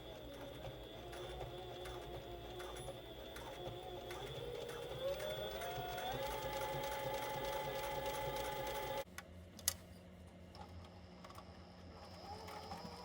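Sewing machine running, its motor whine rising in pitch as it speeds up partway through, then stopping abruptly. A sharp click follows, and the machine runs again more softly near the end.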